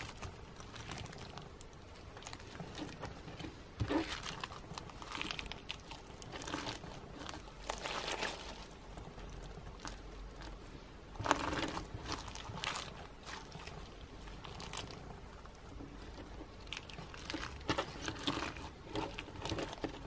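Clear slime mixed with snowflake-shaped sequins being squeezed and kneaded by hand, giving crunchy, crinkly crackles in irregular bursts, the loudest a little past halfway.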